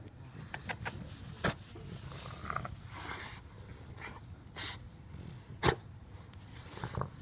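Two bulldogs sniffing and snorting at each other up close, with snuffly breathing and several short sharp snorts, the loudest about three-quarters of the way through.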